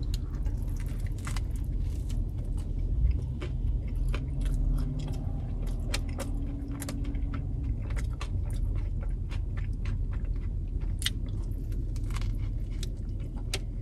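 A person biting into and chewing a sub sandwich, with many small mouth clicks scattered throughout. A bite comes at the start and another near the end, over a steady low rumble.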